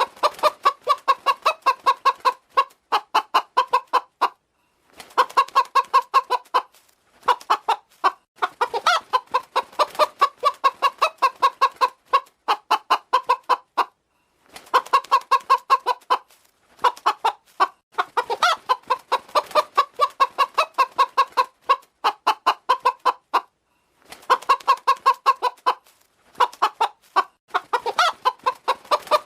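Hen clucking in quick runs of short calls, about four or five a second, in bouts of a few seconds separated by brief pauses.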